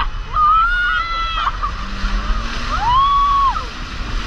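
Riders on a towed inflatable banana boat shrieking in long, high held cries, two of them about two seconds apart, over steady wind buffeting and rushing water from the wake.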